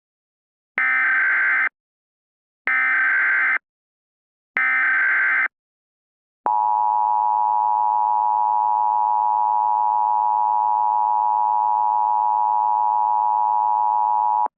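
Emergency Alert System tones: three short SAME header data bursts about two seconds apart, then a long steady attention tone starting about six and a half seconds in.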